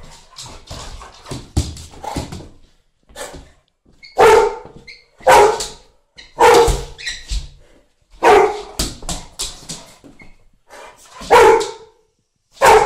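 Bullmastiff barking in play: about six loud barks, roughly one a second, starting about four seconds in, after quieter sounds at the start.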